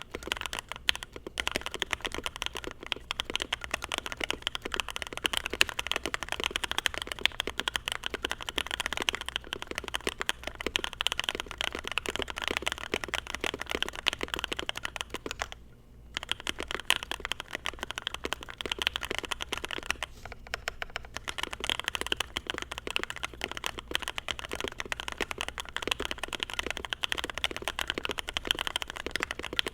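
Continuous fast typing on a Space65 Voyager R1 mechanical keyboard with Marshmallow L+F switches, PBT keycaps and a carbon fibre plate, a dense run of keystroke clacks. The board is O-ring mounted, with case foam and a tape-modded PCB, meant to soften the high-pitched plasticky sound. The typing stops briefly about halfway through and eases off for a moment a few seconds later.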